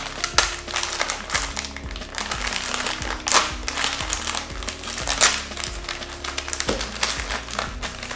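Plastic blind-bag wrapper crinkling and crackling in irregular bursts as it is torn and pulled open by hand, over steady background music.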